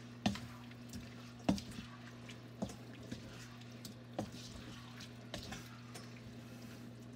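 Wooden spoon stirring sauce-coated vegetables and pasta in a wok, a wet stirring sound with about five knocks of the spoon against the pan roughly a second apart. A steady low hum runs underneath.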